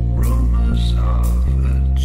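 Background music with sustained deep bass notes and a hit about once a second.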